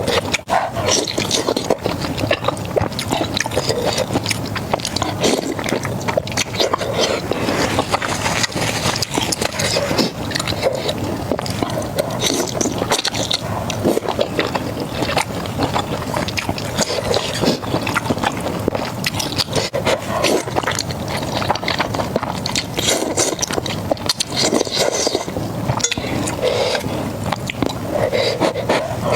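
Close-miked eating sounds: continuous crunching and chewing of crispy fried food, dense with small crackles.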